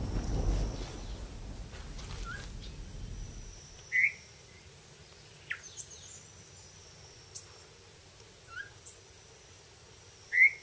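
Wild birds giving short, sharp chirps and calls every second or two, some higher and thinner than others. A low rumble underneath dies away in the first few seconds.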